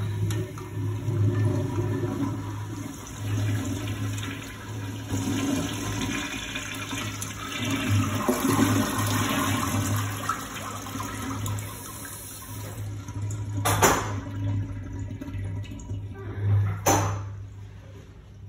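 Toilet flushed by a Sloan flushometer valve freshly rebuilt with a new diaphragm, vacuum breaker and handle kit: water rushes through the valve with a steady low hum, then tapers off. Two sharp knocks come near the end.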